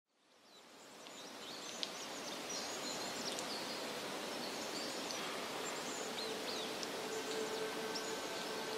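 Outdoor evening ambience fading in: a steady hiss with scattered short, high chirps. A faint held tone comes in near the end.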